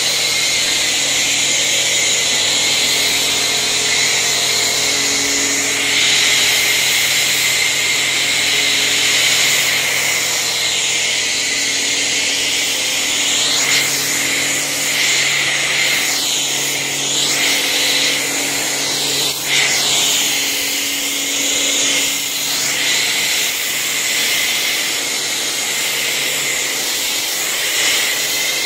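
Pressure washer running with a foam cannon attached: a steady hiss of snow foam spraying over the low hum of the pump motor. The hiss shifts a little now and then as the jet is swept.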